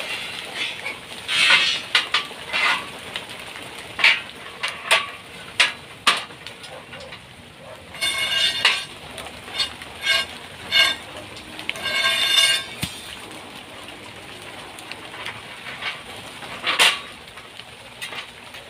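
Steel reinforcing bars being bent and handled by hand: scattered metallic clinks and knocks, with two longer stretches of ringing metal-on-metal scraping about eight and twelve seconds in.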